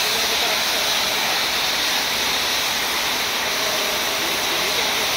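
Oxy-fuel cutting torches on a multi-strip CNC flame-cutting machine, hissing steadily as they burn through steel.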